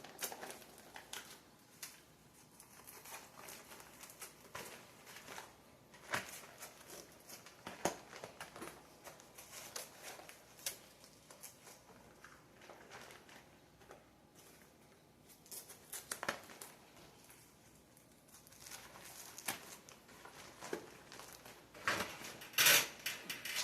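Scattered, quiet rustles and clicks of a plastic greenhouse cover and its Velcro straps being handled and fastened around a frame pole.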